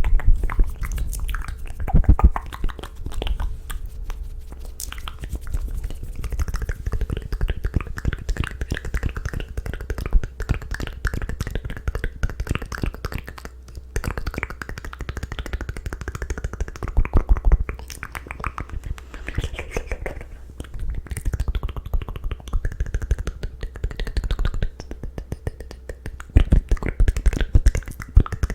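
ASMR mouth sounds made close to the microphone: rapid runs of wet clicks, pops and smacks from the lips and tongue. There are louder flurries about two seconds in and again near the end.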